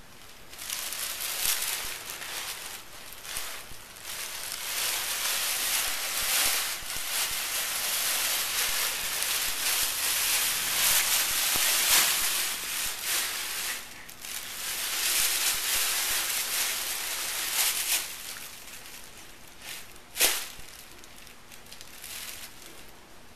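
Thin plastic shopping bags crinkling and rustling as a kitten moves about inside them, nearly continuous for most of the time and dying down near the end. There is one sharp tap shortly before the end.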